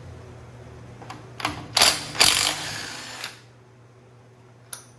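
Hand tools being handled on a workbench: a few loud, short mechanical clatters between about one and three seconds in, the last trailing off over about a second, as a cordless drill-driver is picked up and readied. One small click near the end.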